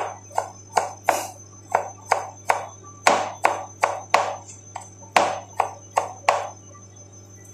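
Kitchen knife chopping cucumber on a cutting board: a steady run of sharp knocks, about two or three a second, that stops near the end. A low steady hum lies underneath.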